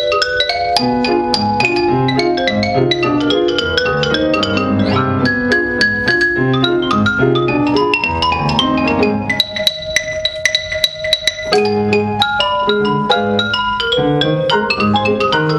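Xylophone playing a fast ragtime melody of quick mallet strikes over grand piano accompaniment. About ten seconds in the xylophone rolls rapidly on high notes for about two seconds, then the quick running melody resumes.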